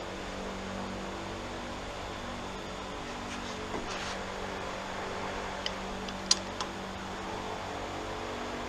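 Torque wrench tightening exhaust riser bolts to 30 pounds on a Chevy 350 small-block marine engine. It gives a few short, sharp clicks over a steady background hum, the loudest about six seconds in.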